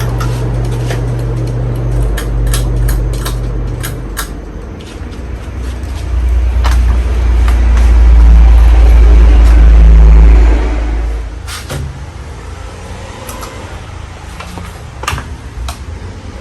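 Gulf Coast Tiara ceiling fan running, heard as a low rumble with scattered sharp clicks. The rumble swells loudest about six seconds in and drops away about eleven seconds in.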